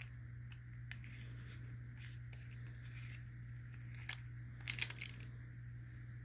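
Parts of an Israeli 4A1 gas mask being handled and pushed into the rubber facepiece: scattered small clicks and rustles, with a louder cluster a little under five seconds in, over a steady low hum.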